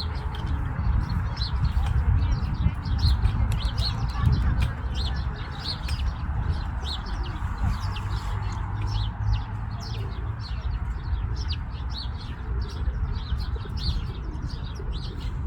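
Birds chirping: a stream of short, sharp, high calls repeating several times a second, over a steady low rumble.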